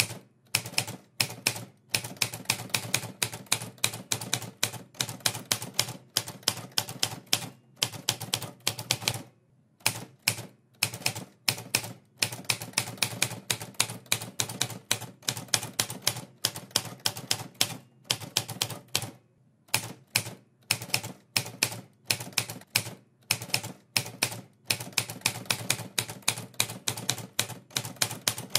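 Typewriter keys clacking in quick, uneven runs of strikes with short pauses between them, as a typing sound effect.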